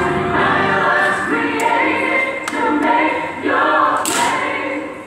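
A church choir singing a gospel worship song a cappella, many voices together with no instruments, the words' sharp 's' sounds cutting through.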